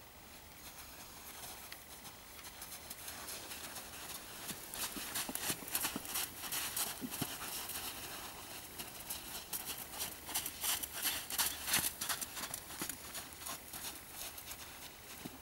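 A horse's hoofbeats on a sand arena as it moves around its handler on a long line. The irregular footfalls grow louder and busier from about four seconds in as the horse picks up pace.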